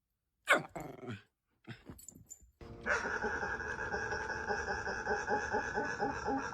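Pet dog making strange vocal noises: a short falling whine about half a second in, then from about two and a half seconds a long, continuous rapid grumbling.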